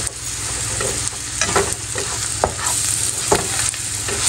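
Onions, green chillies and gram flour sizzling in oil in a nonstick frying pan while being stirred with a plastic slotted spatula. There is a steady hiss of frying, with a few sharp scrapes of the spatula against the pan.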